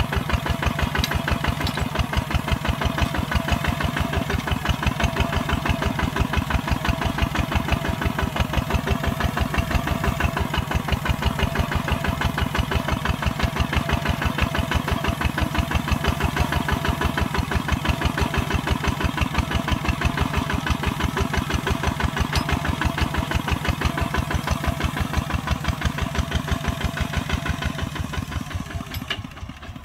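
Kubota ZT140 single-cylinder diesel engine running steadily under plowing load, with a rapid, even thumping beat. It drops quieter about a second before the end.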